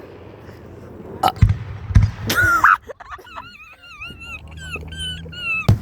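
Fireworks going off at a distance: a few low booms, then a wavering high whistle lasting a couple of seconds, and a sharp crack near the end.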